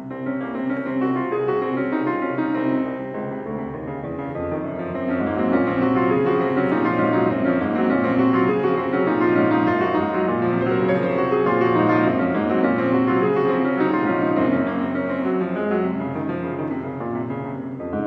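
Yamaha grand piano played solo: a dense stream of many overlapping notes, growing louder about five seconds in.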